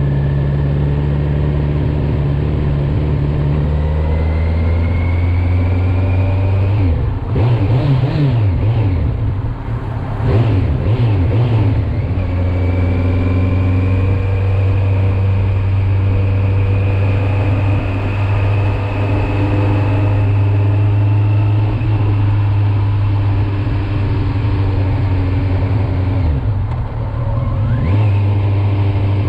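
Kawasaki Z900's inline-four engine running under way. The engine note climbs steadily, swings up and down sharply a few times about seven to twelve seconds in, then holds steady, and dips and rises again near the end.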